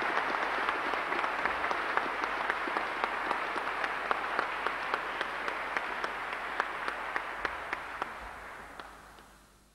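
Audience applauding, a dense patter of many hands clapping that dies away over the last two seconds or so.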